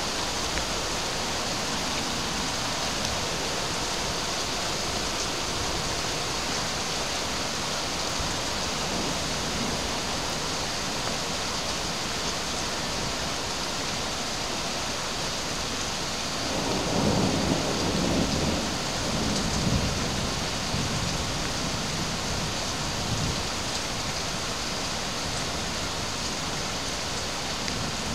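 Heavy rain hissing steadily in a thunderstorm. A roll of thunder rumbles low a little past halfway through, then dies away over a few seconds.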